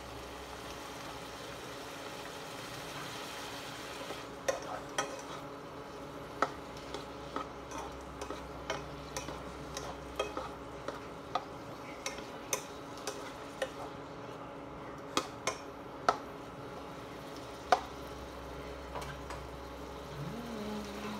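Potatoes, carrots and meat frying in a non-stick pot with a steady sizzle. From about four seconds in, a plastic spatula stirs them, knocking against the pan in irregular sharp clicks.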